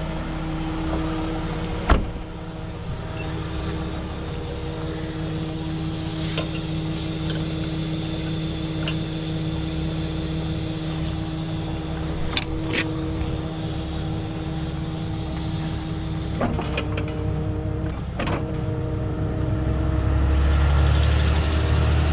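Tow truck's engine running with its hydraulic pump whining steadily, a sharp knock about two seconds in, and a few clicks as the wrecker's control levers are worked. Near the end the low rumble grows louder as the hydraulics drive the wheel-lift boom.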